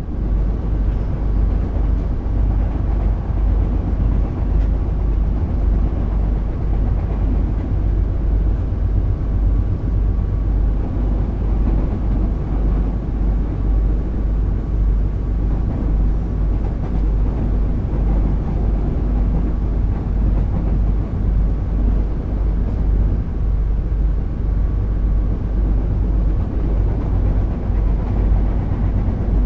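Commuter train running at speed, a steady deep rumble with a faint steady tone above it.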